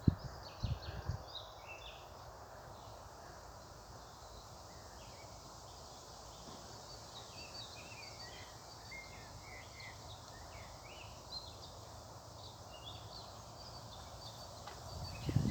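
Several small birds chirping and singing in short, high notes, scattered throughout, over a steady background hiss. A few low thumps in the first second or so.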